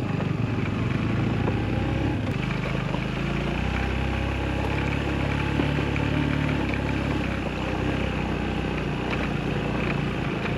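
Suzuki motorcycle engine running while the bike rides a rough gravel trail, over a steady rush of noise. The engine note swells about two seconds in and eases back after about seven seconds.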